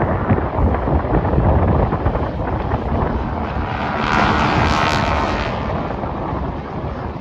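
An aircraft flying past during an airshow display, its engine noise swelling to a peak about four to five seconds in and then fading, over wind buffeting the microphone.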